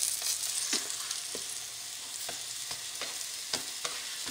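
Coated eggplant slices pan-frying in oil over medium-low heat: a steady, high sizzle with scattered small pops and crackles.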